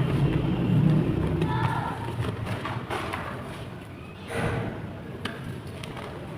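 Blocks of chalk clay being crushed and crumbled, with scattered sharp snaps and a rustling crunch about four and a half seconds in, over a low steady hum that fades after the first two seconds.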